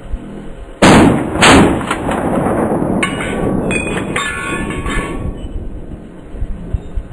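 Two rifle shots from a Romanian PSL in 7.62x54R fitted with an AK-74-type muzzle brake, about two-thirds of a second apart, near the start.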